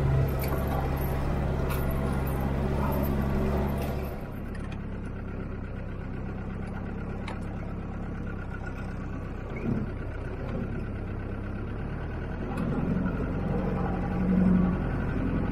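A 4x4's engine running and road noise while driving, heard from inside the vehicle through a dash cam. About four seconds in, the high hiss drops away and the engine settles to a quieter, steady hum, with a few faint knocks.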